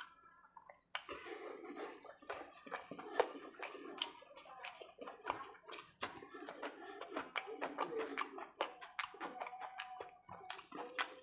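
Close-miked wet chewing and lip-smacking while eating khichdi and egg curry by hand, with fingers squishing through the rice and gravy: a quick, uneven run of small wet clicks and smacks.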